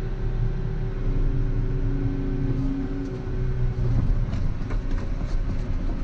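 Volvo EC140EL excavator's diesel engine running steadily under working load while digging a drainage ditch, with a few faint knocks about halfway through.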